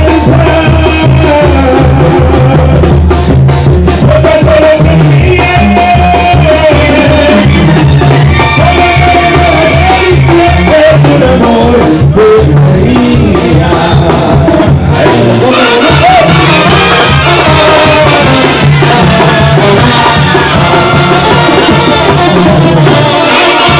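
Live Mexican banda music: trumpets and clarinets playing over drums and a steady bass line, with a singer on a microphone.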